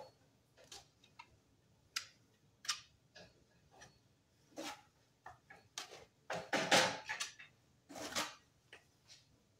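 Tile adhesive being spread and scraped onto the back of a stacked-stone marble panel: a run of short scrapes and clicks, the longest and loudest scrape about six to seven seconds in.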